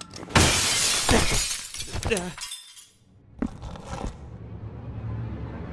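Glass shattering sound effect: a large pane breaking with a long crash of falling shards, then after a short pause a second, shorter burst of breaking glass. Low music comes in near the end.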